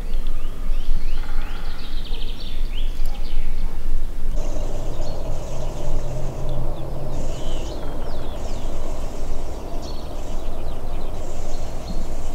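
Wild songbirds singing in spring woodland: repeated short, high chirping phrases throughout, over a loud, steady low rumble. About four seconds in, a low steady hum joins.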